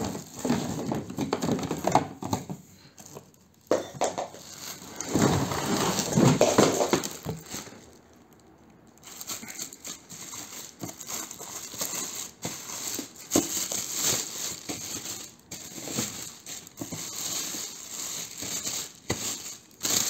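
Plastic wrapping crinkling and rustling as a plastic-wrapped vacuum cleaner and its corrugated hose are handled and lifted out of a cardboard box, with scattered knocks and scrapes. There is a brief lull about eight seconds in.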